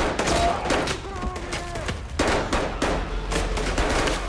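Rifle gunfire in a film shootout: sharp shots fired in quick, irregular succession, a few each second.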